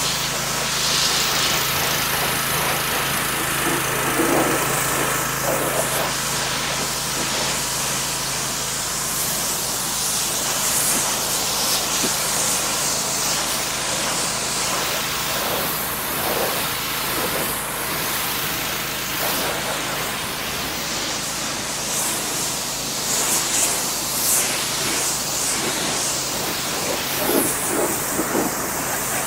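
Gas-engine pressure washer running steadily, its high-pressure water spray hissing against a truck's body as the soap is rinsed off.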